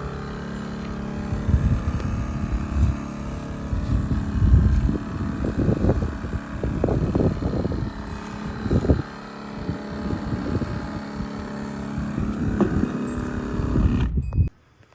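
Carpet-cleaning truck-mount engine running steadily, with wind gusting irregularly on the microphone. The sound cuts off abruptly near the end.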